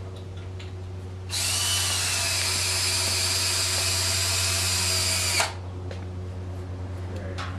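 Power drill driving a deck screw into a 2x4, one steady run of about four seconds that cuts off abruptly.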